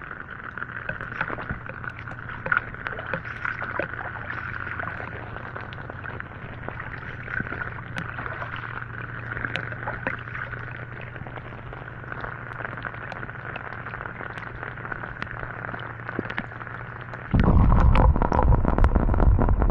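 Rain, with scattered drops tapping on a small action camera, over a steady high drone and a low hum. Near the end a much louder rushing noise starts suddenly.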